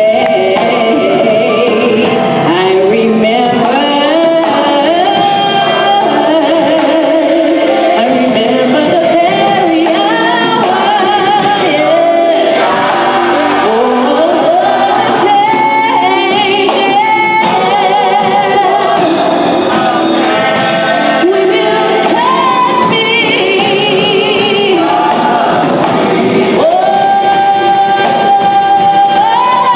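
Gospel choir singing behind a female soloist on a microphone. Near the end the soloist holds a long, high note that steps up once.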